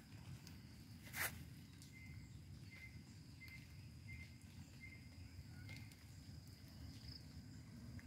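Faint outdoor ambience after rain: a low rumble of wind or handling on the microphone, one brief rustle about a second in, and a faint short chirp repeated about every two-thirds of a second through the middle, over a thin steady high insect-like tone.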